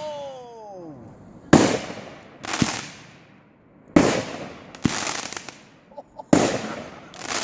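Fireworks going off: about five sharp bangs, each trailing off over about half a second and coming roughly in pairs a second apart, with a falling whistle near the start.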